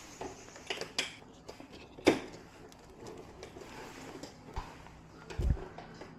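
A few sharp clicks and knocks of small hard objects, the loudest about two seconds in, and a dull thump near the end.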